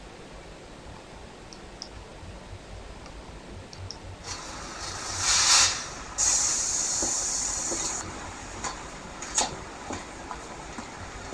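Compressed air hissing from a bus's air system: a swelling hiss that cuts off sharply, then a second steady hiss lasting about two seconds, followed by a few knocks and clicks.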